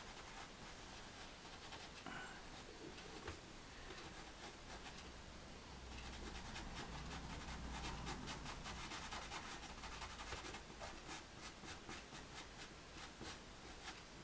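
Caran d'Ache pastel pencil scratching and rubbing faintly on paper. It draws short strokes, which become quicker and more distinct in the second half.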